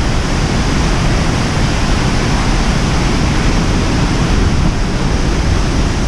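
Waterfall pouring close up: a steady, loud rush of water, with wind buffeting the microphone at the low end.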